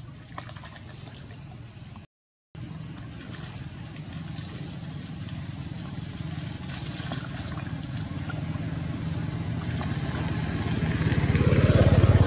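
Low engine rumble of a motor vehicle passing off-screen, growing louder toward the end, with its pitch rising near the end. The sound cuts out briefly about two seconds in.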